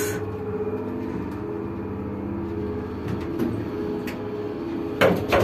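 Otis traction elevator running, a steady hum with several held tones heard inside the small cabin.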